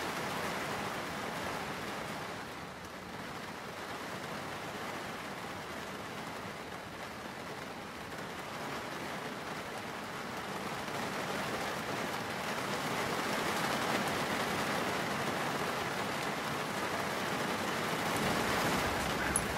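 Heavy thunderstorm rain with strong wind, a steady rushing hiss that dips slightly about two seconds in and grows louder from about twelve seconds on.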